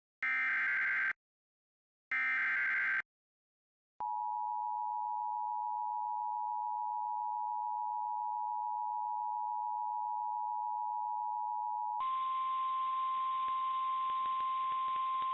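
Emergency Alert System signalling: two short bursts of SAME digital header data a second apart, then the two-tone EAS attention signal held steady for about eight seconds, then a switch to the single-tone NOAA Weather Radio warning alarm over a faint hiss.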